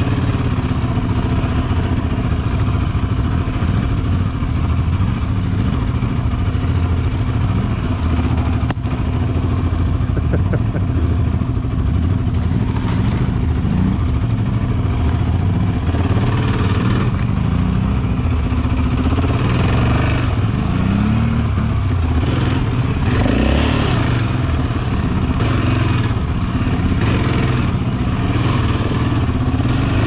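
Yamaha Raptor 700 quad's single-cylinder four-stroke engine running, heard on board, its pitch rising and falling as the throttle is opened and closed over the rough trail.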